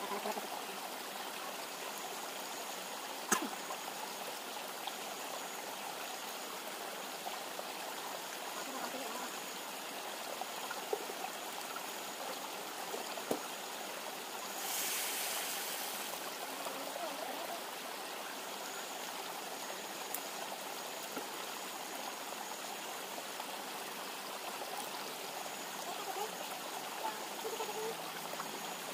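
Steady rush of a flowing river, with a few sharp pops from the wood campfire and a brief hiss about halfway through.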